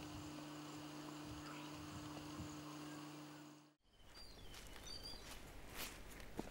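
Faint rural outdoor ambience of insects and birds. A steady low hum and a few soft taps run until a sudden dropout about four seconds in; after it come a few short high bird chirps and some sharp clicks.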